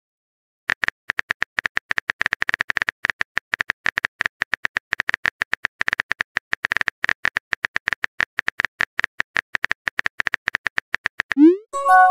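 Rapid, irregular phone-keyboard tap clicks from a typing sound effect, running for about ten seconds. Near the end comes a short rising whoosh, then a chime of several tones: the message-sent sound.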